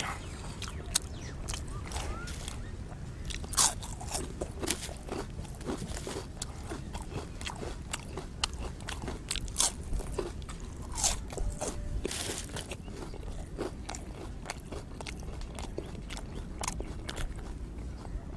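A person biting and chewing crisp fried pastry eaten by hand, giving irregular crunches with a few louder ones.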